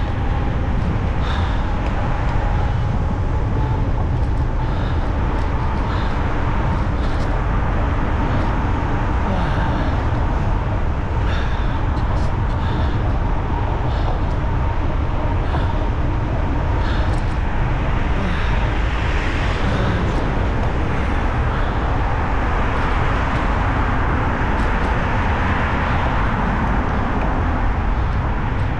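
Wind rushing and buffeting over the microphone with tyre noise from an electric bicycle riding along a bike path, steady throughout, with short clicks every second or two.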